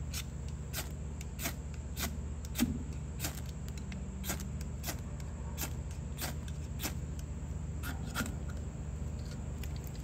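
Spine of a Victorinox Swiss Army knife's saw blade scraped repeatedly down a mini ferrocerium rod: about fifteen short, sharp scrapes, one every half second or so, with one heavier stroke about two and a half seconds in. A steady low hum runs underneath.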